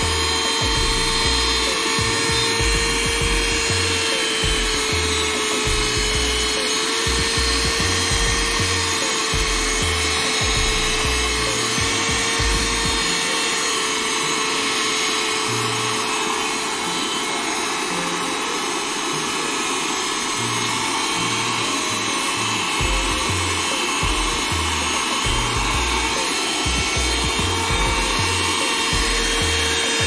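Cordless handheld car vacuum cleaner running steadily, a constant motor whine over rushing air, as it sucks up paper scraps, grass and dirt from a rubber floor mat.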